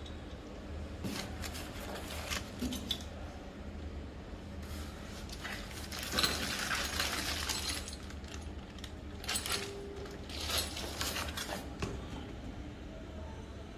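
Parts of a bicycle engine kit being handled: scattered light clinks and knocks of hard parts, with a stretch of rustling about six seconds in, over a steady low hum.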